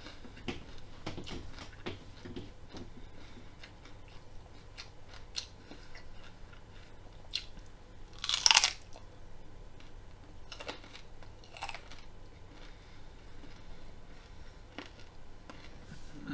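A person chewing raw broccoli, with scattered small crunches, and one loud crunching bite about halfway through.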